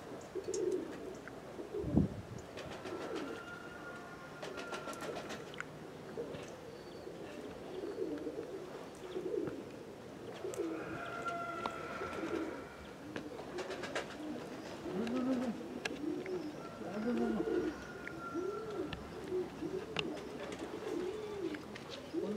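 Domestic pigeons cooing over and over, each coo rising and falling, thickest in the second half. A single low thump sounds about two seconds in, with a few light clicks scattered through.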